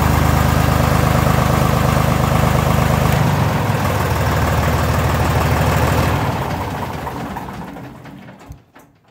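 Deutz D4506's air-cooled four-cylinder diesel running at idle, its low note changing about three seconds in. About six seconds in it is shut off and runs down, dying away over the last few seconds.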